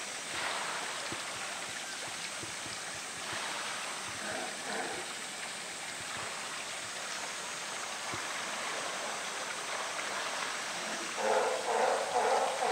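Pool water sloshing and splashing around a swimming polar bear. About eleven seconds in, a louder sound with a steady pitch joins.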